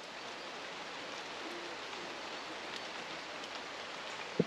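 Light drizzle falling steadily, an even soft hiss of rain with a few faint drop ticks.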